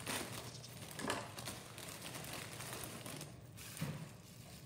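Plastic bubble wrap rustling and crinkling as it is handled, with a few sharper crackles.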